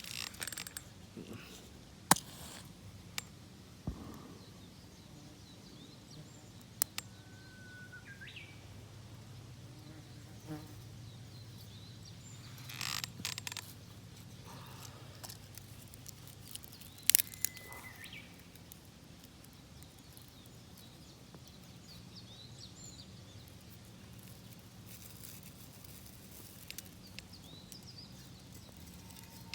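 Small sharp clicks and taps from handling a matchbox and stove, with a brief scraping hiss about halfway through as a match is struck on the box's striker. Short bird chirps come through faintly now and then.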